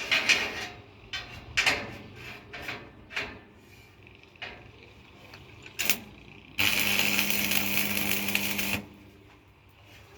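A series of short clicks and scrapes, a knock, then a small electric power tool runs steadily for about two seconds and stops abruptly.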